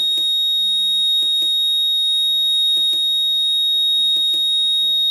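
A steady, high-pitched electronic tone from the EVER Powerline UPS's alarm buzzer, sounding without a break. Over it the front-panel arrow button clicks four times, each a quick double click of press and release, about every second and a half, as the event log is stepped through.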